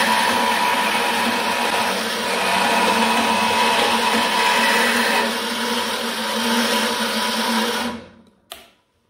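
Craftsman 14-inch band saw, converted to a servo motor, cutting 1/8-inch 6061 aluminum bar with the blade at about 475 feet a minute. A steady cutting noise stops about eight seconds in, followed by a single click.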